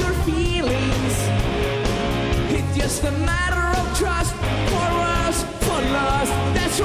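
Live rock band playing loud, with electric guitar, keyboard and a voice singing into a microphone over a steady bass and drum beat.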